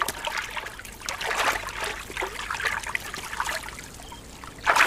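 A European mink wading through a shallow stream, water trickling and splashing around it, with a louder splash near the end.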